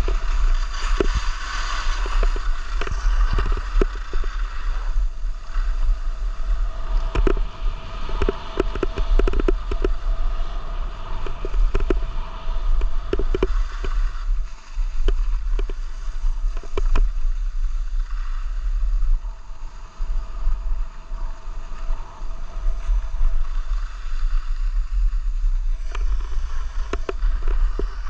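Wind buffeting the microphone of a skier moving downhill, with the hiss and scrape of skis on packed snow and frequent short scraping clicks.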